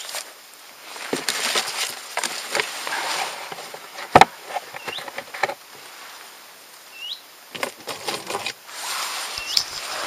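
Steel mug dipping into a shallow pool and water being poured, with irregular splashes, trickles and clinks; one sharp knock about four seconds in.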